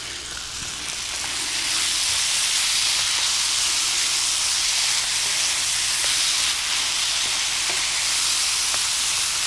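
A spiced vegetable mixture sizzling in a frying pan while it is stirred with a wooden spatula. The sizzle swells over the first two seconds, then holds steady.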